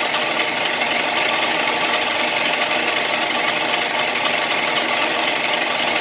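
1967 Rockwell 14-inch gearhead lathe running at its fastest speed: a steady, noisy whir of the headstock gears meshing and churning through their oil bath, splashing oil up onto the spindle bearings.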